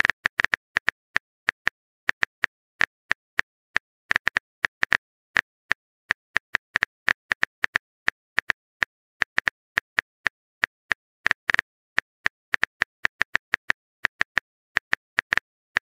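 Phone keyboard typing sound effect: a long run of short key-tap clicks at an uneven pace, several a second.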